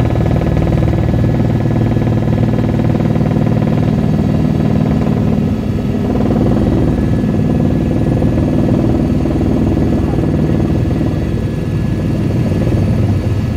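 Helicopter engine and rotor noise heard from inside the cabin in flight: an even, unbroken drone with steady tones.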